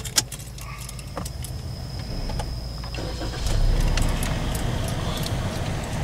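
Vehicle engine running, heard from inside the cab, with two sharp clicks right at the start; the engine's rumble grows louder about three and a half seconds in.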